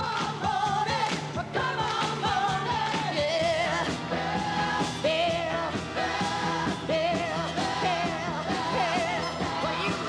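Background song with a singer's voice over instrumental backing.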